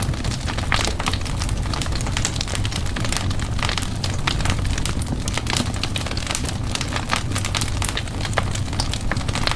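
Wood fire in a fireplace crackling, with many quick irregular pops and snaps over a steady low rumble of the flames.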